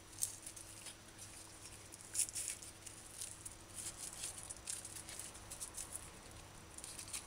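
Faint, irregular crisp rustles and small snaps of scallion (green onion) leaves being peeled off and the stalk trimmed with a kitchen knife, loudest about two seconds in.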